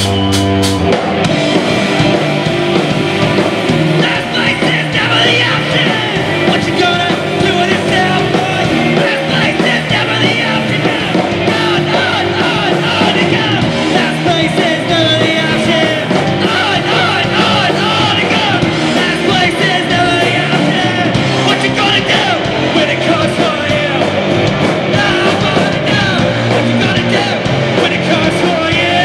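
Postpunk band playing live, with two electric guitars, bass guitar, drum kit and a man singing into the microphone. The full band comes in right at the start with a few sharp drum hits.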